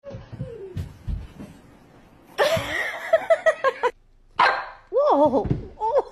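Puppy barking: a quick series of short high yips, then longer barks that rise and fall in pitch. A few soft thumps come before the barking.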